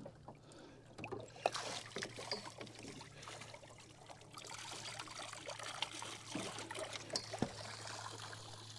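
Faint trickling and splashing of water in a boat's live bait tank, over a steady low hum, with a few small knocks.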